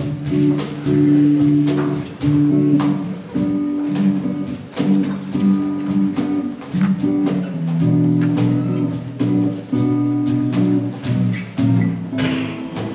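Live instrumental music from acoustic guitars playing held chords that change every second or two, with short sharp hits keeping a beat, likely from the cajon.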